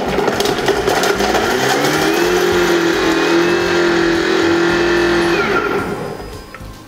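Cobbo 7 kitchen robot's motor spinning its blade at high speed (7.5) to chop two garlic cloves. The whine rises as it spins up, holds steady, then winds down and fades about five and a half seconds in.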